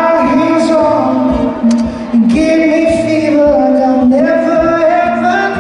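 Live amplified music: a singer holding long, wavering notes over instrumental backing.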